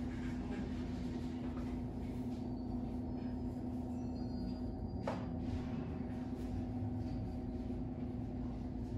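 Steady low mechanical hum over a rumble, with one sharp click about five seconds in.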